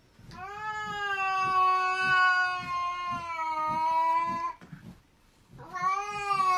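A cat's long, drawn-out yowl held at a steady pitch for about four seconds, then a second yowl starting near the end. It is a cat's threat yowl at another cat during a face-off.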